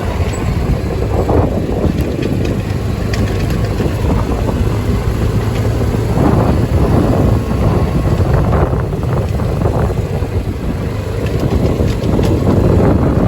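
Wind buffeting the microphone over a steady low engine hum, with gusty swells throughout.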